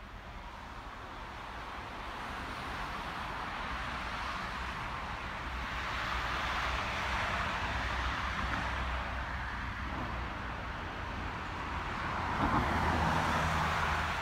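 Heritage steam locomotive approaching in the distance, its sound growing steadily louder, with a further swell near the end.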